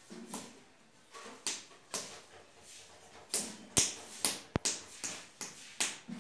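A baby's hands slapping a stone floor: about nine short, sharp slaps at uneven intervals, several in quick succession past the middle.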